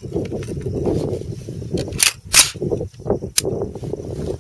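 An AR-15 rifle being loaded with a magazine: sharp metallic clacks, two close together about two seconds in and another about a second later, over rustling from handling the rifle.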